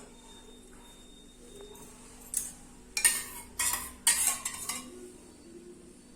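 A few sharp clinks and clatters of kitchen utensils and dishes being handled, bunched from about two to five seconds in.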